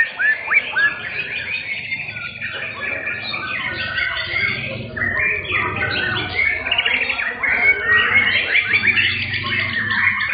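Several caged white-rumped shamas (murai batu) singing over one another in a contest ring: a run of quick repeated rising-and-falling whistles at the start, then a dense mix of whistles and chattering phrases.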